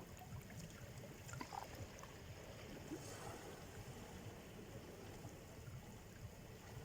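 Faint, gentle Black Sea surf: small waves washing and trickling on the shore over a low rumble, with a soft swell of wash about three seconds in.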